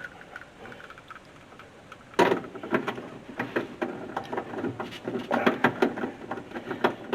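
Irregular clicks, taps and light knocks of hands fitting small parts and hardware, starting about two seconds in and carrying on in quick succession.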